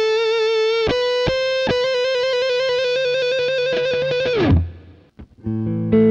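Harley Benton SC-550 Deluxe single-cut electric guitar played through an amp. A long held lead note wavers with vibrato while a few short notes are picked against it. About four and a half seconds in the note slides down and fades, and after a short gap a fuller, lower chord rings out.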